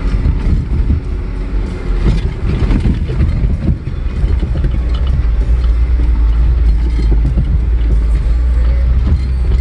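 Off-road vehicle crawling along a rough dirt trail: a steady low engine rumble, with irregular knocks and rattles as it rolls over bumps and ruts.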